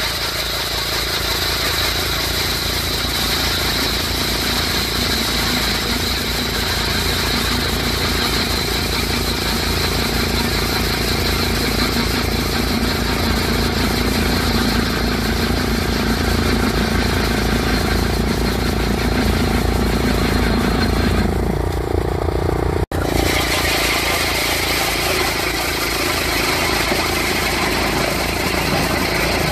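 Engine of a sled-mounted Sleigh Auger ice auger running steadily under load as its auger bores through thick lake ice. The sound cuts out for an instant about three-quarters of the way through, then the engine runs on as drilling continues with a 15-inch cutter.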